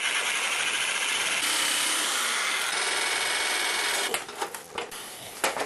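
Handheld electric sheet-metal cutter buzzing steadily as it cuts through thin sheet steel for about four seconds, then stopping. A few short clicks and knocks of the steel sheet being handled follow near the end.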